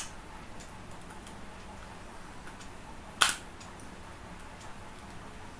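Faint handling clicks as a screwdriver works on a blue plastic aquarium air pump housing to open its front, with one louder, sharp click about three seconds in.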